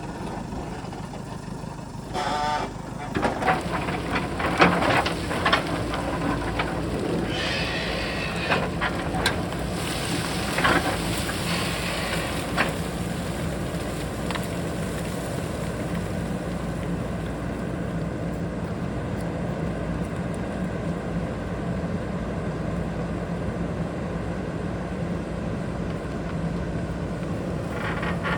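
JCB backhoe loader's diesel engine running steadily under work, with scattered knocks and clatter in the first half.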